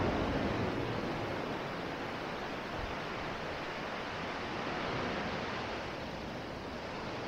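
Sea surf washing onto a beach: a steady rush of waves that grows a little louder about five seconds in.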